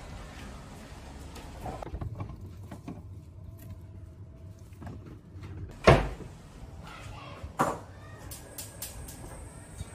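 A refrigerator door is opened and shut, closing with a loud thud about six seconds in. A lighter knock follows a couple of seconds later as a bowl is set down.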